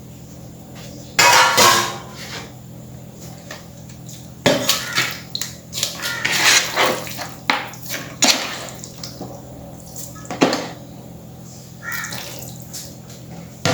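Ingredients being tipped from bowls into a cooking pan: irregular bouts of clattering knocks and scrapes as bowls and a spoon strike the pan, over a faint steady hum.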